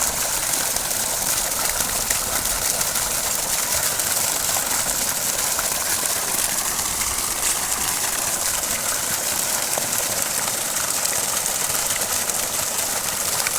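Newly repaired farm water-pump motor running, with water gushing steadily from its outlet.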